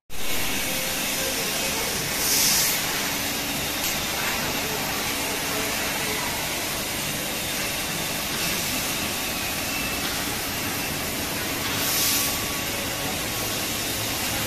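A 3 kW fiber laser cutting machine cutting steel plate: a steady hiss of the cutting head's assist gas jet, surging louder and sharper twice, near the start and again near the end.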